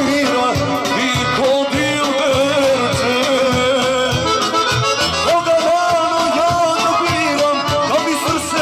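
Balkan folk band playing kolo dance music: a sustained lead melody over a steady, regular beat.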